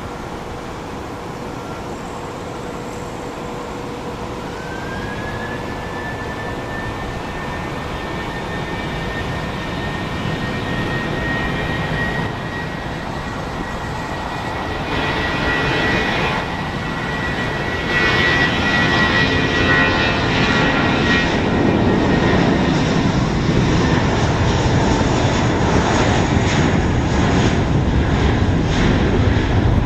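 Airbus A320-232's IAE V2500 turbofan engines at takeoff. A whine rises in pitch about four seconds in and then holds steady, and the jet roar grows louder through the run.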